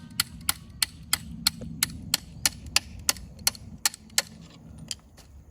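Sharp knocks struck at a steady pace of about three a second, stopping about four seconds in, followed by one or two stray knocks, over a low hum.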